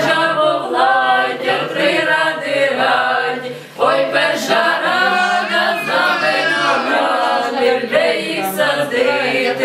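A group of amateur singers, men and women together, singing a Ukrainian koliadka (Christmas carol) unaccompanied, with a short break for breath a little under four seconds in.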